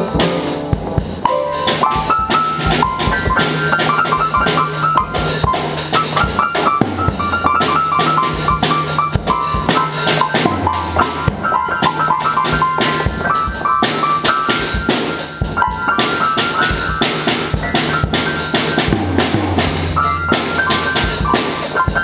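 Drum kit being played with a steady beat, with high keyboard notes played over it.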